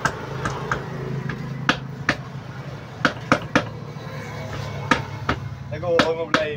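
Sharp metallic clinks and knocks of a hand tool on the stripped Honda TMX 125 engine's cylinder block and crankcase, about a dozen at irregular intervals, over a low steady hum.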